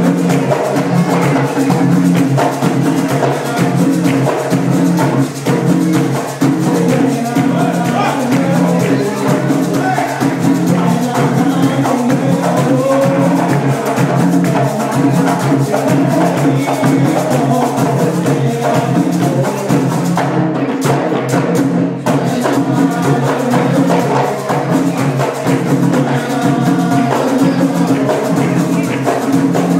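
Live Puerto Rican folk music: several panderos (handheld frame drums) beating a steady repeating rhythm under group singing.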